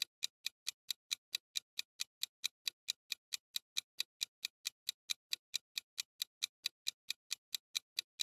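Clock-ticking sound effect counting down the answer timer: short, sharp, even ticks about three a second.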